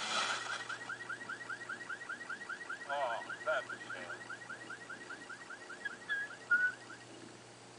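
A car alarm sounds a fast, repeating rising chirp, about four or five a second, and cuts off about seven seconds in. It is heard through a television's speaker.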